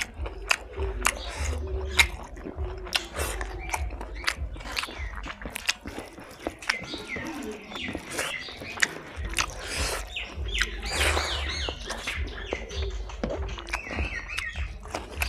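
Close-up eating sounds: wet chewing, lip smacks and mouth clicks as pork fry and rice are eaten by hand. Birds chirp in the background, most clearly about eleven seconds in and near the end.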